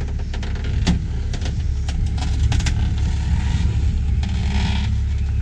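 A vehicle engine running steadily, with a few sharp metal knocks over it.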